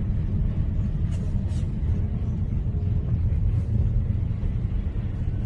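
Steady low rumble of a car driving, the road and engine noise heard from inside the cabin.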